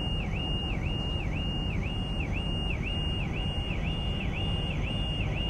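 A car alarm sounding: a high tone that dips down and swings back up about twice a second, repeating steadily. Underneath runs a steady low rumble.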